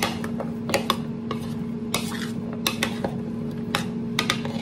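Metal spoon stirring oiled raw potato fries in a bowl: irregular clinks and scrapes of the spoon against the bowl, over a steady low hum.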